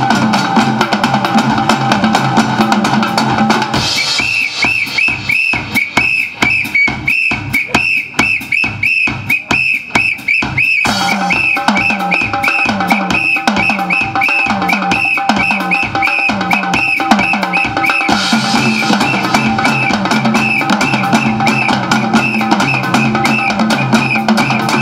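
Background band music led by a drum kit keeping a steady beat. About four seconds in, a high repeating melody line comes in and the drum hits stand out; the fuller band sound returns about eleven seconds in.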